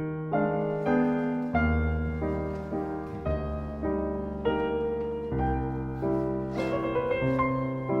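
Background piano music: a steady run of single notes, about two a second, over held low bass notes that change every few seconds.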